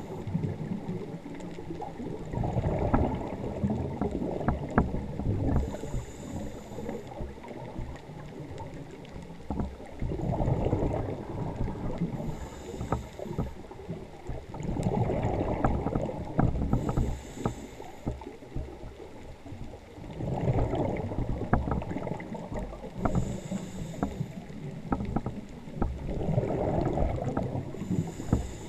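A scuba diver breathing through a regulator underwater: a short hiss on each inhale, then a longer rumbling rush of exhaled bubbles, repeating about every five to six seconds.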